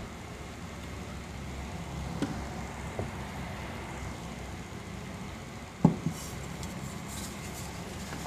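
Gold Christian Dior gas lighter being handled: a couple of light metal clicks, then a sharp loud click about six seconds in as the lighter is opened and struck, followed by a faint crackling hiss as it lights. A steady low rumble runs underneath.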